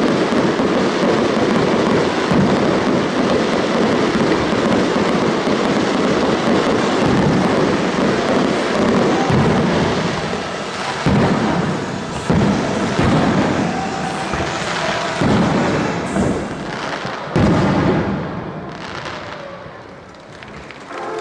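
Aerial fireworks barrage: a dense, unbroken rumble of shell bursts and crackle. About halfway through it thins into separate bangs a second or two apart, then dies away near the end.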